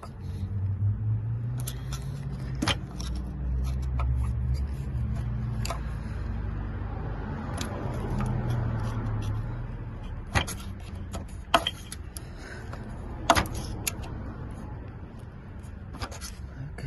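Metal clicks and knocks of a pry bar or flat screwdriver working against a stuck EGR valve to break it loose from the engine, over a low rumble that fades about halfway through.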